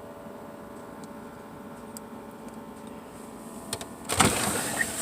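Food containers being handled: a few light clicks and taps over a faint steady hum, then a loud rustle and scrape of packaging about four seconds in.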